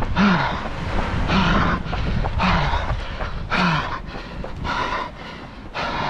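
A runner breathing hard mid-race: a heavy, partly voiced exhale about once a second, six in all, over a steady low rumble.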